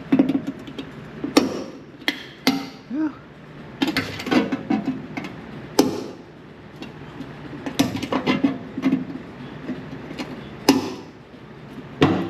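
Irregular sharp knocks and clanks of tools and sheet-metal body panels being handled and tapped, about a dozen strikes spread unevenly with short gaps between them.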